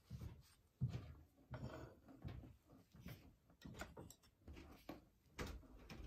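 Faint rubbing and soft, irregular knocks of a wet acrylic-pour canvas being handled while paint drips are wiped off its underside, with a sharper knock about a second in and another near the end.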